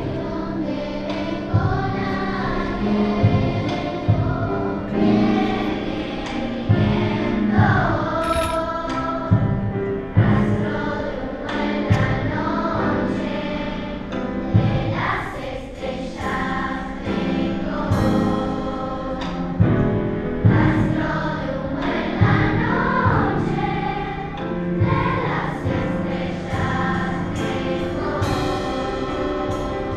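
Children's choir singing over instrumental accompaniment that has a low beat roughly every two seconds.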